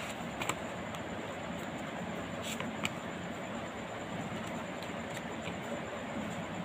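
Strip of craft paper being creased by hand into fan folds, a few short sharp paper crackles over a steady background rush.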